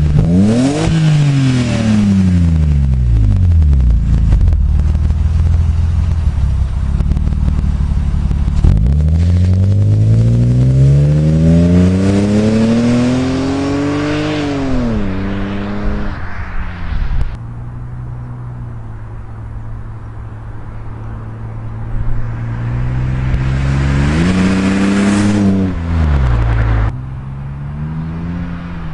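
BMW E36 328i's 2.8-litre straight-six engine revving up and falling back three times: a brief rise at the start, a long climb about nine seconds in that drops off sharply, and a short rev near the end. It idles steadily in between.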